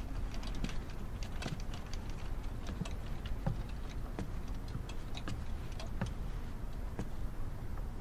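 A wheelchair being pushed across the floor, with irregular light clicks and taps from its wheels and frame, over a low steady hum.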